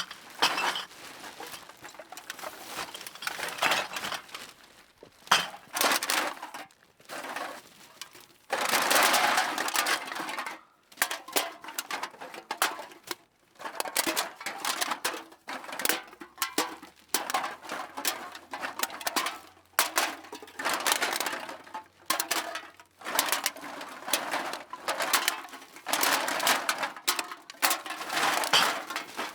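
Cans being dropped and pushed into a bag: irregular bursts of clattering and rustling with short pauses between them, the longest and densest burst about nine seconds in.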